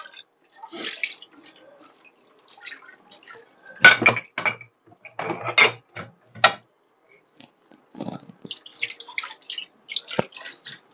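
Dishes being washed by hand in a sink: water splashing and dripping, with irregular clinks of crockery and cutlery, loudest around the middle.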